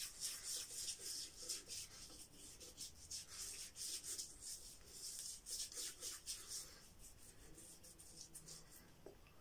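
Wet hands, slick with water from a soaked shaving soap, rubbing over a stubbly face: a run of soft, quick swishing strokes that fade out over the last couple of seconds.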